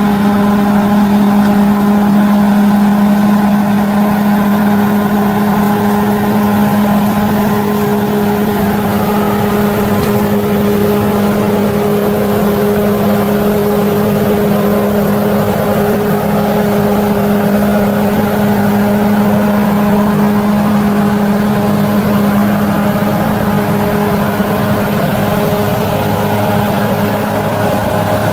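Bulldozer's diesel engine running steadily at a constant pitch, with a steady hum.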